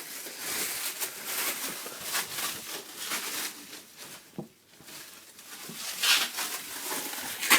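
Rustling and crinkling of packaging paper being handled, with a few sharper crackles near the end.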